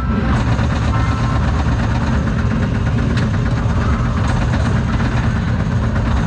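Steady engine and road noise heard from inside a moving vehicle's cabin: a low rumble with tyre hiss on wet pavement.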